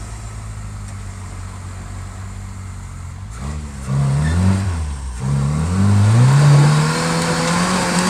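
First-generation Toyota 4x4's engine idling, then revved in several short blips and a longer rising rev as its 35-inch all-terrain tyres spin on wet rock without getting traction.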